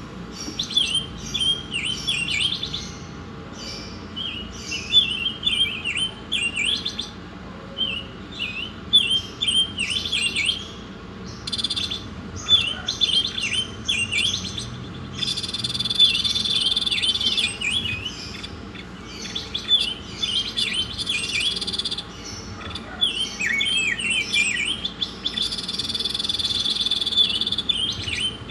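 Songbird singing: phrases of rapid, sharp chirps broken by short pauses, with two longer, high sustained trills about halfway and near the end.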